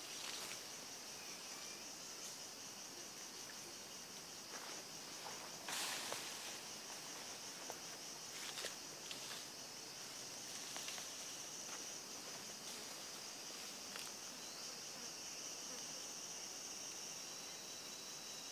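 Steady high-pitched drone of a rainforest insect chorus, with a few brief scuffs or rustles, the loudest about six seconds in.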